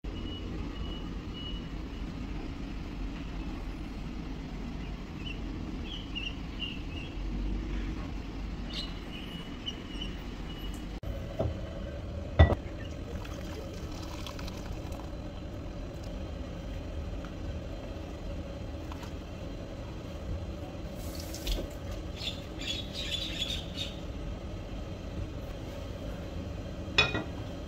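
Kitchen sounds over a steady low hum: water poured from a kettle into a clay pot, a single sharp click about halfway through, and a run of light clinks and clatters later on.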